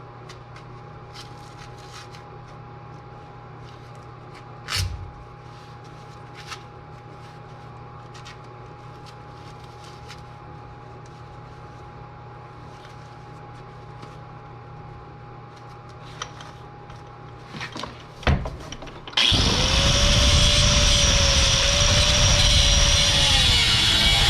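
A few light knocks against metal, then near the end a power cutting tool switches on and runs steadily, cutting through a rusted sway bar link. Its whine dips slightly in pitch as it bites into the metal.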